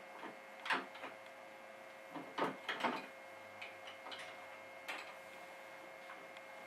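A few scattered light metallic clicks and knocks as a chrome aluminum water pump and its bolts are handled and fitted against a small block Chevy's engine block.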